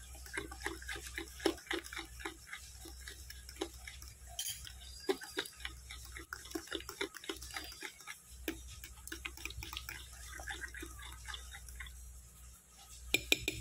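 Fork stirring wet banana, sugar and egg batter in a glass bowl: a quick, uneven run of wet squelches and light clicks of the fork against the glass, the mixing that dissolves the sugar.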